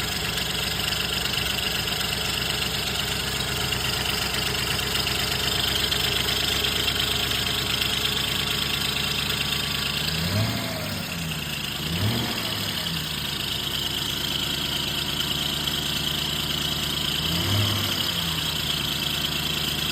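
Car engine idling steadily, revved briefly three times, twice in quick succession around the middle and once more later, each time dropping back to idle. The engine is being listened to for a suspected rod knock.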